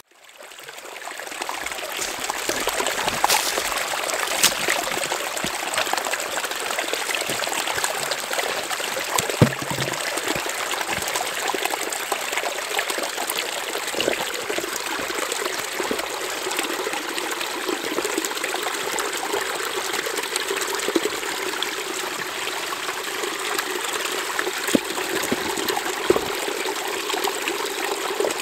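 Small shallow forest stream running and trickling over rocks, a steady water sound that fades in over the first second or two. A few small knocks stand out above it.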